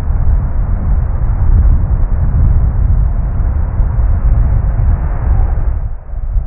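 Airbus A380's four Rolls-Royce Trent 970 jet engines running with a deep rumble as the jet rolls along the runway. The sound dips briefly near the end, then the rumble goes on.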